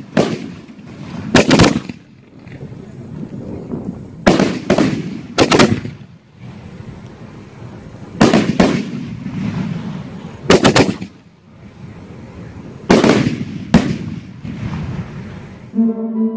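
Three-inch sky-shot shells from a 4x6 multi-shot firework setout bursting overhead: loud sharp bangs in clusters of two or three every three to four seconds, each followed by a rumbling echo. Music starts just before the end.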